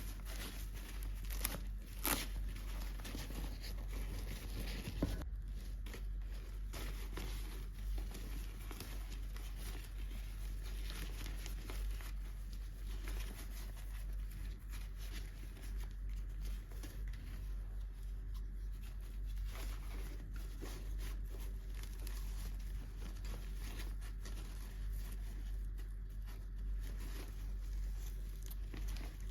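Toy packaging being unwrapped: plastic and paper crinkling and tearing, with continuous small rustles and clicks and a few sharper clicks in the first few seconds.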